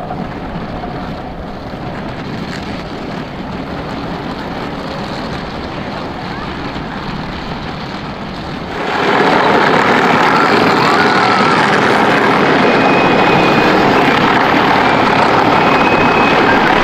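12-volt Power Wheels ride-on motorcycle and quad driving, their electric motors running and hard plastic wheels rolling on pavement as a steady noise. The noise jumps much louder about nine seconds in.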